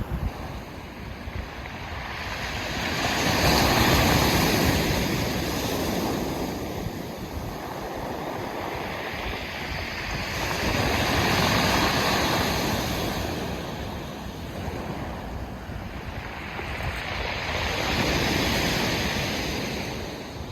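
Sea waves breaking and washing up a pebble beach, the surf swelling and falling back about every seven seconds, three times. Wind rumbles on the microphone underneath.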